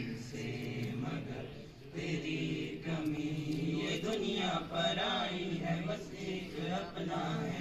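A group of boys singing together in unison, with long held notes.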